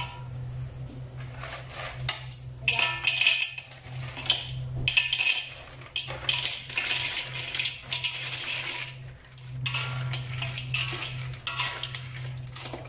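Hard shells of lokan batu shellfish clattering and clinking as they are tipped from a plastic bowl into a metal wok and scraped in and stirred with a metal spatula, in repeated bursts, loudest about three to five seconds in.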